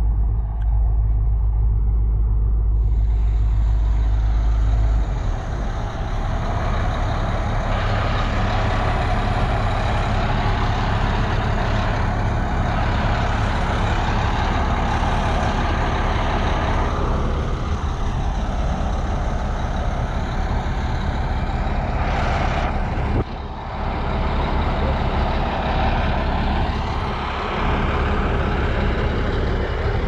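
Crawler bulldozer's diesel engine running loud and steady under load as it pushes soil, its note shifting a little as it works, with a deeper rumble in the first five seconds and a brief dip in level about twenty-three seconds in.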